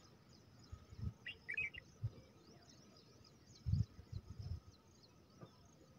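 Faint background of birds chirping, with a short warbling call about a second and a half in, and a few low muffled thumps.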